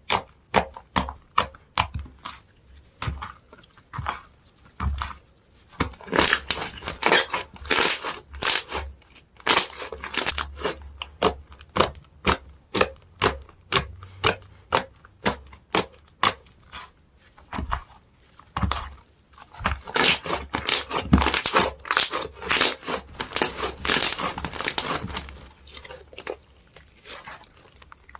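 Slime being squished, poked and stretched by hand, giving a steady run of sticky clicks and pops about two to three a second, with denser crackling stretches in the middle and again later on.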